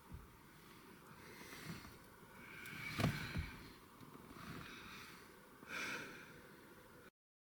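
Faint, close breathing and sniffing, with soft exhalations, one sharp click about three seconds in, and the sound cut off abruptly near the end.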